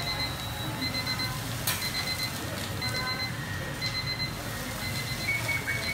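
Electronic beeping from kitchen equipment, short high beeps repeating in runs, over the steady low hum of kitchen machinery and ventilation. A higher-pitched beeping starts near the end, and there is a single sharp clack about two seconds in.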